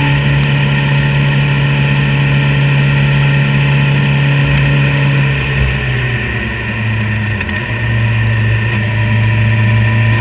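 Motorcycle engine running steadily under way at road speed, with steady wind noise on the mounted camera. About six seconds in the engine note drops and eases, dips briefly, then settles steady at a slightly lower pitch.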